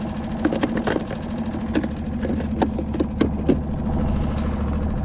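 A small motor, most likely a boat engine, runs with a steady low hum. About a dozen sharp, irregular clicks and knocks sound over it, mostly in the first few seconds.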